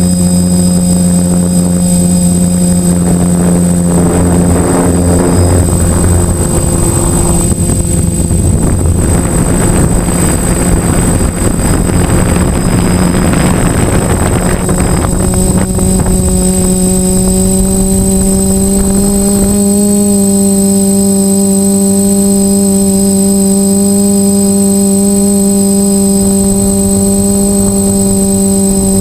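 DJI F450 quadcopter's motors and propellers, recorded close up, humming in a pitch that shifts and wavers with gusts of rushing air for the first half. From about halfway through the hum holds steady, with a slight step up in pitch a few seconds later. A thin, steady high whine runs throughout.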